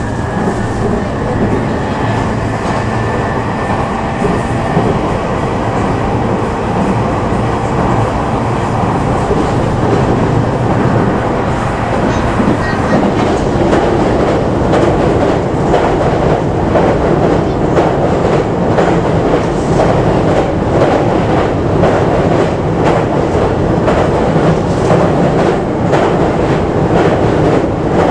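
Cabin noise of a JR E233 series 2000 electric commuter train running at speed: a steady rumble of wheels on rails, getting slightly louder. From about halfway through, the wheels click rhythmically over rail joints.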